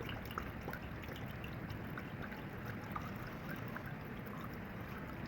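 Water pouring steadily, with small scattered splashes, over a faint low hum.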